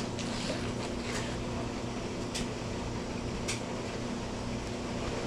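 Steady low hum of a room appliance, with a few faint short crackles as a man bites into and chews a burger wrapped in a paper towel.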